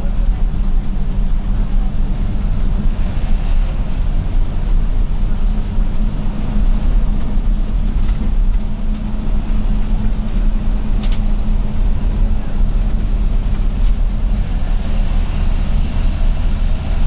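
Ashok Leyland bus's diesel engine running under way, heard from inside the driver's cabin as a steady low drone mixed with road noise. A single sharp click stands out about eleven seconds in.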